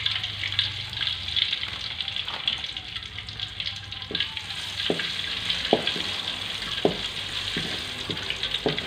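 Crushed garlic sizzling steadily in hot oil in a metal wok, with a wooden spatula knocking and scraping against the pan about six times from around four seconds in as it is stirred.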